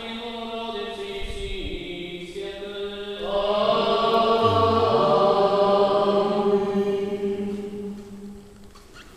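Several voices singing liturgical chant of an Eastern-rite church wedding service. They hold long, steady notes, grow louder about three seconds in, and die away near the end.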